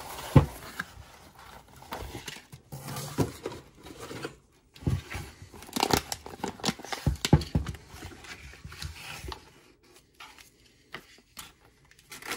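Cardboard box and clear plastic bag being opened around a spool of 3D-printer filament: irregular tearing, rustling and crinkling of packaging. The handling is busiest in the middle and thins to a few scattered clicks near the end.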